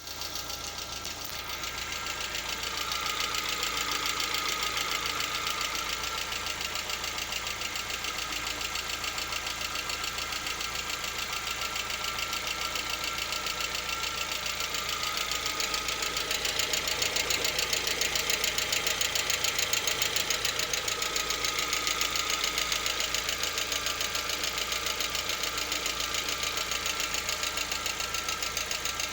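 Lada Vesta engine idling with a fast, even knock keeping time with the engine. The knock shows up only partway through warm-up, at about 50 °C coolant temperature, and is absent both cold and fully warm.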